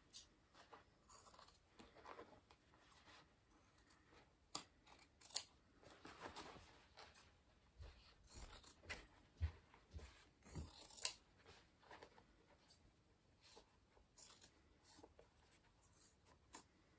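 Scissors snipping through denim in quiet, irregular cuts, with fabric rustling between them, as the folded-over inside of a jeans hem is cut off.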